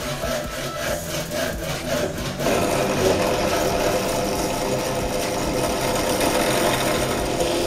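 A hand saw cutting through a wooden dowel with quick, even back-and-forth strokes. About two and a half seconds in, it gives way abruptly to a drill press running steadily as a Forstner bit bores into a wooden base.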